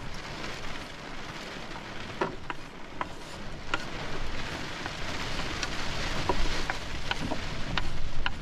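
Prawns, red peppers and baby sweetcorn sizzling in a pan: a steady hiss with scattered sharp pops and spits, getting somewhat louder in the second half.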